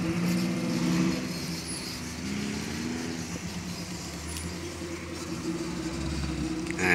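Off-road 4x4's engine running at low speed, its revs rising and falling as it is driven over rough dirt.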